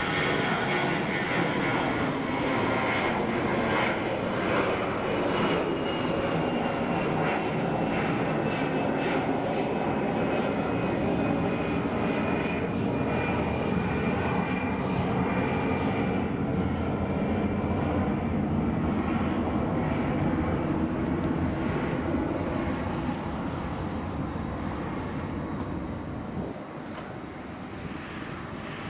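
Jet engines of an Airbus A321 airliner passing close by, a steady loud roar with a thin whine that slowly falls in pitch. The roar fades near the end.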